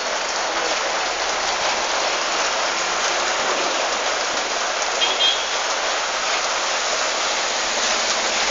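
Steady rain falling, an even hiss, with vehicles passing on the wet street. A short high chirp about five seconds in.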